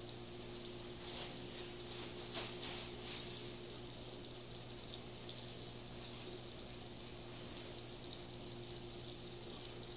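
Thin plastic shopping bag rustling and crinkling as it is shaken about, with a run of louder crackles about one to three and a half seconds in, over a steady low hum.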